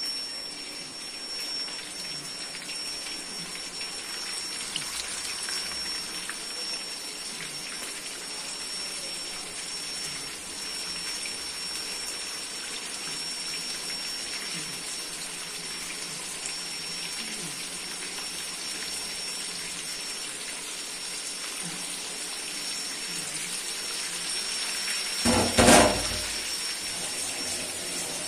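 Chicken pieces deep-frying in hot oil: a steady sizzle with no break. A loud thump comes shortly before the end.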